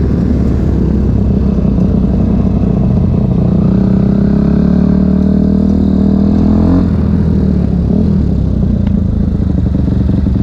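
Dirt bike engine running while being ridden, heard from the rider's helmet. Its note holds steady, climbs slowly through the middle and falls off sharply about two-thirds of the way through.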